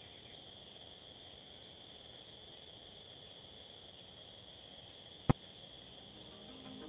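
Steady, high-pitched drone of insects, with one sharp click about five seconds in.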